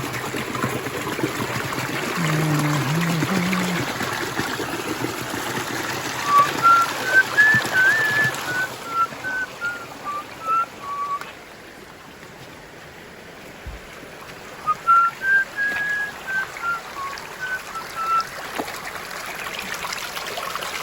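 Small stream trickling over rocks, with two arching phrases of short whistled notes that rise and then fall, one about six seconds in and another about fifteen seconds in.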